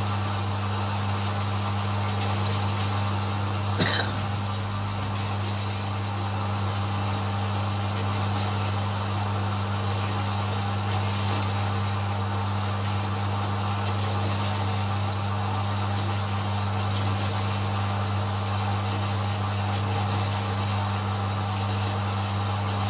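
Horizontal metal-cutting bandsaw running and cutting through steel plate: a steady motor hum with blade noise, unchanging throughout, with a single click about four seconds in.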